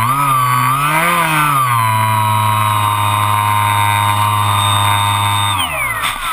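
Electric motor and propeller of a Bixler RC plane, heard from the GoPro on the plane itself: a steady whine that rises and dips in pitch about a second in. Near the end it winds down quickly as the throttle is cut.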